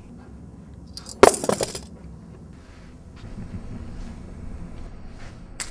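A single sharp crash about a second in, with a brief glassy, clinking ring, over a low steady hum; a small click near the end.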